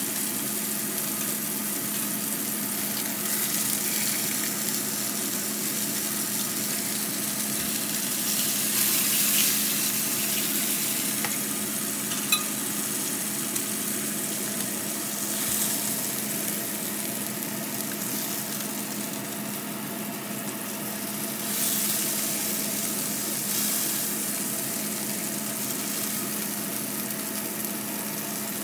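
Steak frying in oil in a nonstick frying pan: a steady sizzle that swells louder a few times, with one sharp click about twelve seconds in.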